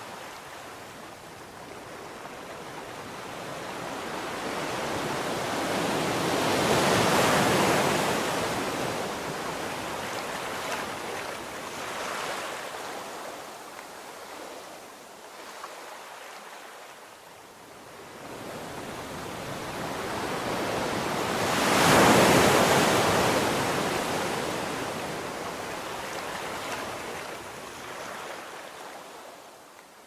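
Ocean surf breaking on a sandy beach and washing up the sand. It swells twice, with one wave peaking about a quarter of the way in and a louder one about three quarters of the way in, then eases off near the end.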